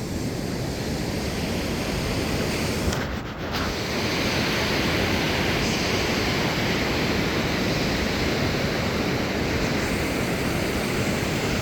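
Steady rush of ocean surf on the beach, with some wind, dipping briefly about three seconds in.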